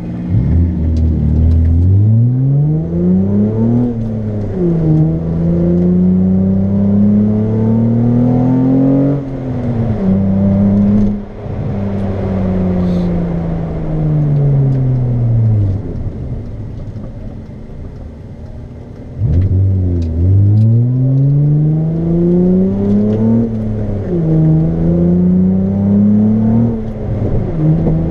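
Straight-piped Hyundai Tiburon's engine and exhaust, heard from inside the car, accelerating hard through the gears. The revs climb and drop back at each upshift, then fall away as the car slows. About nineteen seconds in, a second hard pull climbs through two more shifts.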